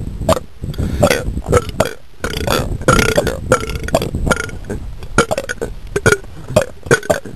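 A person belching over and over: a quick run of short burps, with a longer drawn-out belch about three seconds in.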